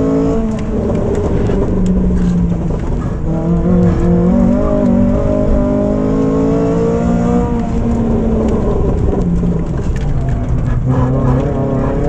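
Renault Clio 3 RS's 2.0-litre four-cylinder engine running hard under load, heard from inside the cabin, its pitch climbing and dropping several times as the car accelerates and backs off, with a sharp dip and climb near the end.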